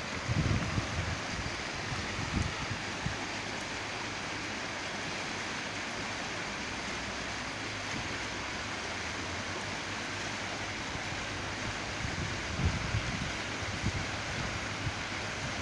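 Wind buffeting the phone's microphone in gusts, with low rumbling thumps about half a second in, around two to three seconds in and again near the end, over a steady outdoor hiss.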